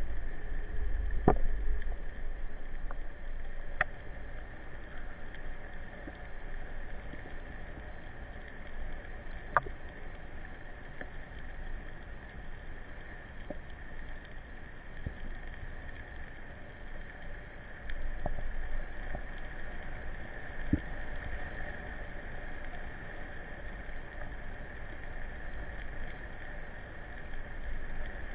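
Underwater ambience picked up by a camera in a waterproof housing during a breath-hold dive: a steady hiss over a low rumble, with a few sharp, isolated clicks scattered through it.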